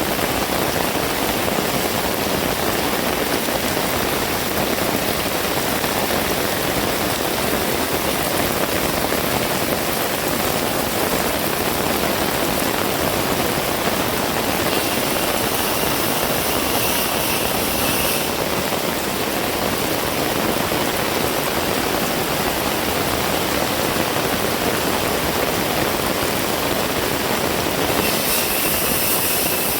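Heavy rain falling steadily, a dense even hiss. A brighter, hissier stretch comes in about halfway through for a few seconds, and again near the end.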